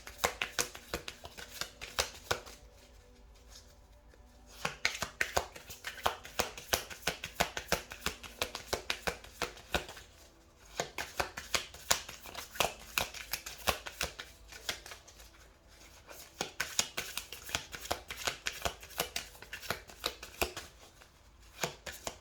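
A deck of tarot cards being shuffled by hand: rapid runs of sharp card clicks and flicks, broken by short pauses about three seconds in, around ten seconds in and near the end.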